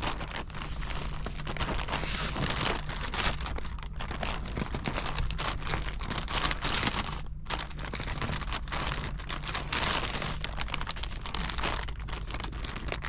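Plastic compression bag crinkling and rustling as bedding is handled and pushed into it, with a short lull about seven seconds in.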